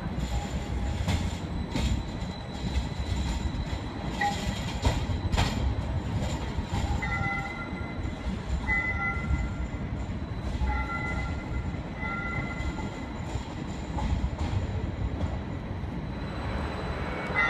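A battery-electric Brookville Liberty streetcar passing on its street track and pulling away, a low rumble with scattered clicks. From about seven seconds in, high squealing tones come and go.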